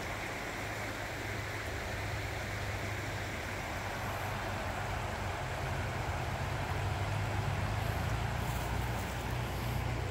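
Shallow rocky creek running over stones: a steady rushing babble of water, with a steady low rumble underneath.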